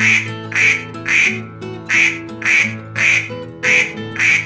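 Duck quacking over background music: about eight short, rasping quacks at roughly two a second, with a brief pause near the middle.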